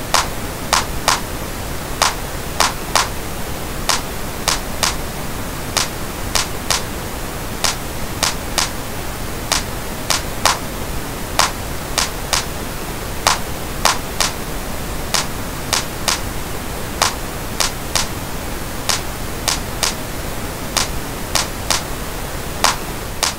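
Steady pink noise with a looped clap sample hitting over it in an uneven repeating pattern, about two hits a second. The clap is being equalized against the noise, with a cut dipping into its middle frequencies.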